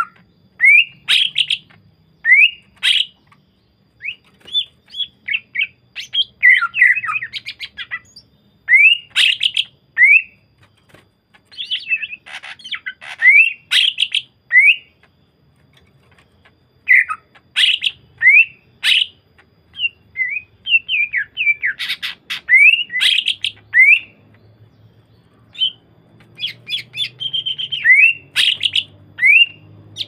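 Caged male greater green leafbird (cucak ijo) singing: loud bouts of short, sharp rising whistles and rapid chirps, broken by brief pauses.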